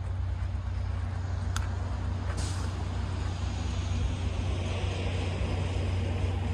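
Diesel locomotive of an approaching train running in the distance, a steady low rumble that grows slightly louder, with a brief click about one and a half seconds in.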